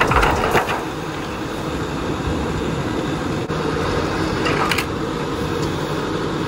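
Nissan Sentra body being dragged and rolled over by a chain: steady scraping and rumbling with a few sharp knocks, cutting off suddenly near the end.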